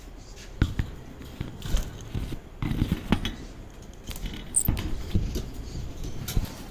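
Irregular knocks, scrapes and rustles, with one brief high chirp about four and a half seconds in.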